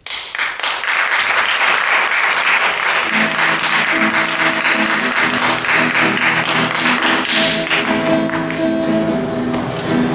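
Audience applauding, starting suddenly and fading near the end, while music with a plucked guitar comes in about two and a half seconds in and carries on.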